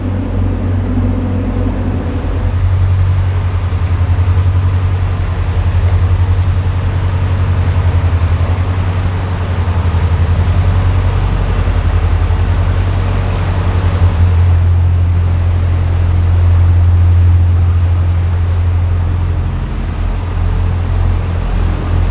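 A narrowboat's engine running steadily, a loud, low, throbbing drone heard inside a canal tunnel. It gets somewhat louder about two-thirds of the way through, then eases off.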